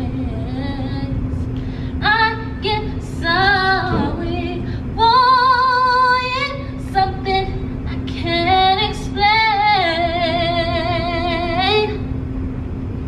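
A woman singing a slow R&B-style melody, with quick runs of notes and long held notes with a wide vibrato, the longest near the end.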